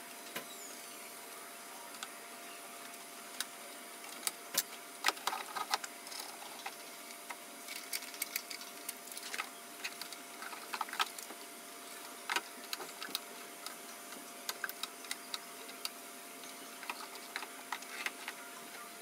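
Irregular clicks and taps of 3D-printed plastic parts being handled and pressed together on a 1/10 scale GR Supra model, over a faint steady hum.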